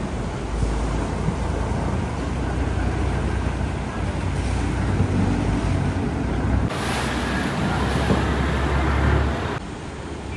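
Canal boat's engine running loudly and steadily, with water rushing past the hull. From about seven to nine and a half seconds in, a louder, hissier rush of water and wind comes over it, then falls away.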